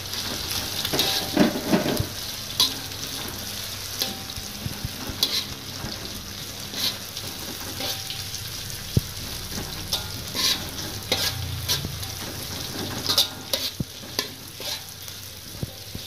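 Sliced shallots, garlic, chilies and dried anchovies sizzling in hot oil in a metal wok while a metal spatula stirs them, with frequent short clacks and scrapes of the spatula against the pan.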